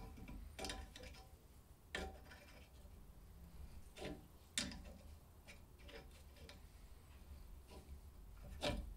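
Adjustable wrench turning a thread tap into a stud hole in an aluminium engine case: faint, scattered metal clicks, about five in all, the loudest near the end.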